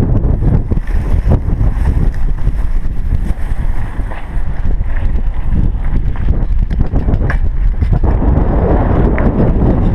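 Wind buffeting the microphone of a chest-mounted GoPro Hero3 on a moving bicycle: a loud, fluttering low rumble, with a few light clicks over it and the rush growing fuller near the end.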